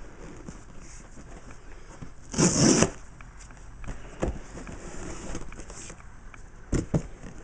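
A cardboard shipping box being opened by hand. There is a loud, short tearing rip about two and a half seconds in, like packing tape pulled free, then cardboard rustling and a couple of light knocks near the end.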